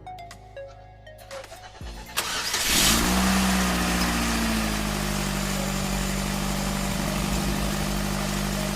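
Mazda 3 engine cranked and started about two seconds in, flaring up briefly as it catches, then settling into a steady idle, running again after its fuel injectors were replaced.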